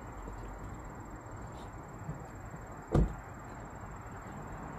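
A car door shutting: one heavy thud about three seconds in, over a steady quiet outdoor background.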